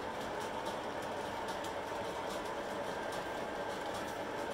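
O-gauge model train rolling along the track: a steady whir of wheels and motors, with faint light clicks several times a second as the cars pass over rail joints.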